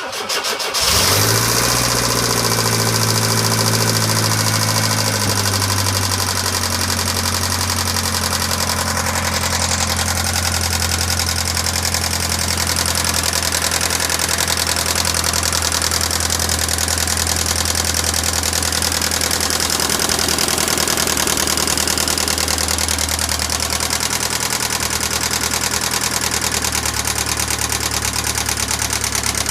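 1996 Pontiac Sunfire's 2.4-litre twin-cam four-cylinder engine starting, running at a fast idle and settling to a steady idle about six seconds in, with a persistent ticking noise. The tick remains after the head and valves were restored and the lifters replaced, and its cause is unknown.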